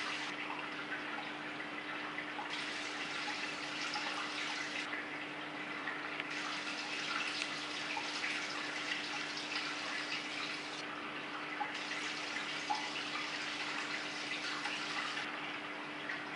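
Steady trickling and splashing of water circulating in a large aquarium, with fine crackles of bubbles and a steady low hum underneath.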